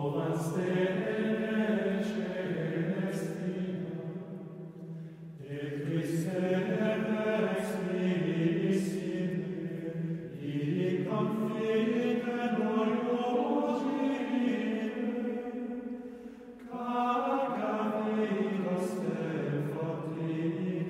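Men's voices singing plainchant in long, slowly moving phrases with brief pauses between them.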